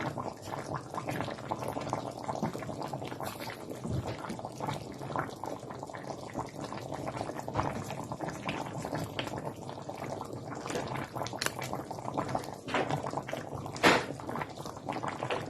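Tomato-based chicken stew simmering in a covered pot, bubbling and crackling steadily, with one louder tick near the end.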